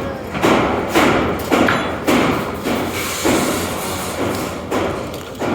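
A series of heavy, uneven thuds and knocks, about two a second, slowing and thinning out toward the end.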